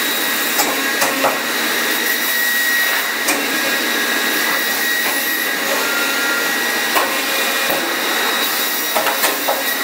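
Leico Leifeld PNC 106 CNC metal spinning lathe running, its roller forming a sheet-metal part on the spinning mandrel. A steady machine noise with a high steady tone, broken by a few sharp clicks, several of them near the end.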